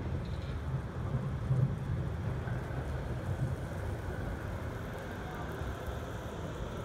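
Low-floor electric tram rolling in along street tracks towards a stop: a steady low rumble of wheels on rails, with a faint motor whine in the middle.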